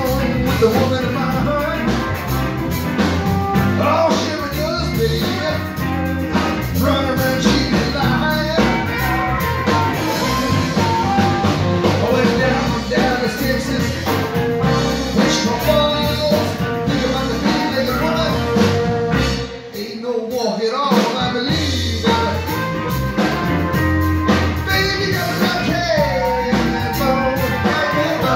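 Live blues-rock band playing, with a singer. About two-thirds of the way through the band cuts out for a second or so, then comes back in.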